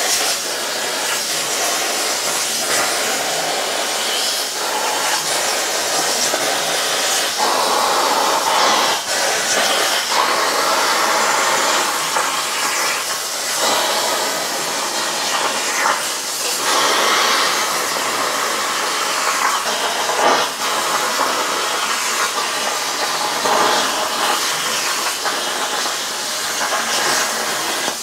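CNC plasma cutter torch cutting 14-gauge sheet steel at 30 PSI of air: a loud, continuous hiss and crackle of the plasma arc and air jet, swelling and easing as the torch traces the pattern.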